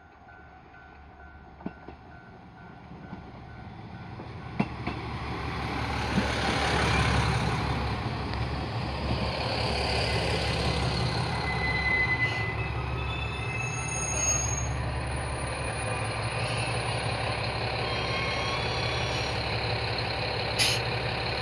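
KiHa 101 diesel railcar pulling into a station and stopping: it grows louder over a few seconds as it rolls in, gives a few short high-pitched squeals as it brakes, then its diesel engine runs steadily at idle. A sharp click near the end.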